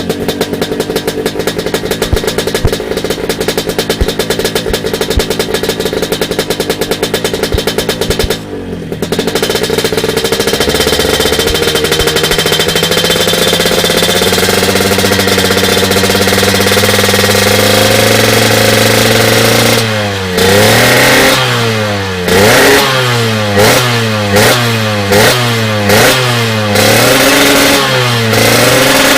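Yamaha RX-King's 135 cc two-stroke single running through an SMR Super Pro 91 stainless exhaust. It idles with a rapid popping for about the first eight seconds, is then held at higher revs, and from about twenty seconds in is blipped over and over, the pitch rising and falling about once a second.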